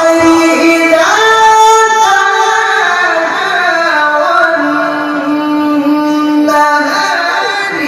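A male Quran reciter chanting in a high register, drawing out a single syllable over long held notes. The pitch steps up about a second in, then sinks, and settles on one long steady note before a short break near the end.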